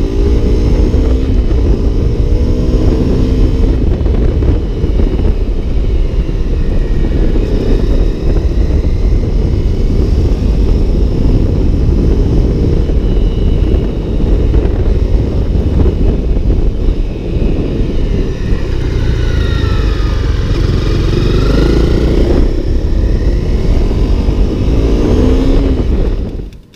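A 2017 Honda CRF250L's single-cylinder four-stroke engine under way, its pitch rising and falling as it revs up and eases off, with heavy wind noise over it. The sound cuts off sharply near the end.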